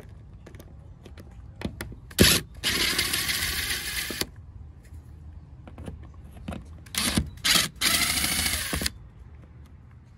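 Power drill backing screws out of a boat's rub rail, running in two spells of about two seconds each, with short trigger blips and clicks around them.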